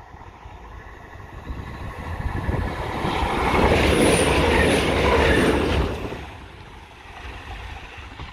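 A train passing close by: the rush of wheels and engine builds up, is loudest for a couple of seconds in the middle, then dies away.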